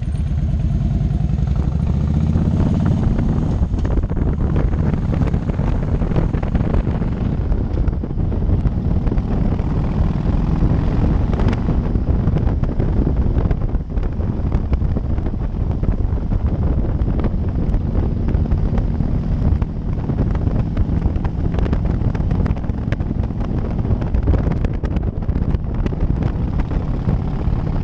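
Motorcycle engine running at road speed, with wind rushing over the helmet-mounted camera's microphone. The engine's tone is clearest in the first few seconds, then mostly buried under the wind.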